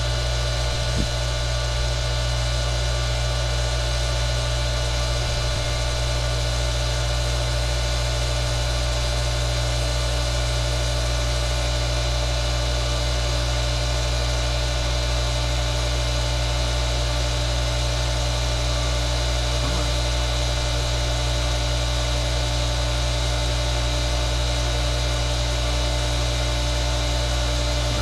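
Water pressure booster pump's electric motor running steadily with a hum, building pressure toward its 50 PSI cut-out.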